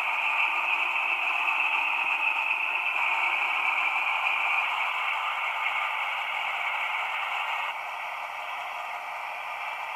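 DB class 216 locomotive's MB 16V652 TB10 V16 diesel engine running, heard as a thin, hissy, radio-like noise with no bass. It eases off a little after about four seconds and drops a step about three quarters of the way through.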